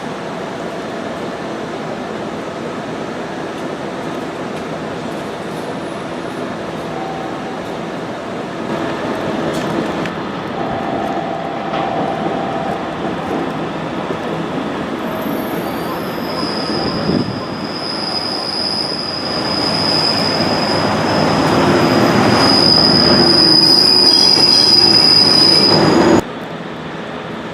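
A train running on rails. It grows louder about two-thirds of the way through, with a high, steady wheel squeal from about halfway. The sound cuts off abruptly shortly before the end.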